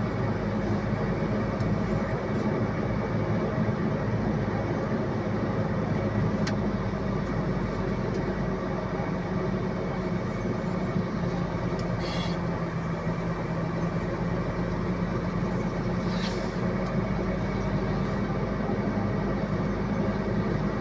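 Diesel engine of an Iveco boom truck running steadily as the truck drives along, heard from inside the cab. It is a steady drone with a low hum that shifts slightly in pitch. There are two brief high-pitched sounds about twelve and sixteen seconds in.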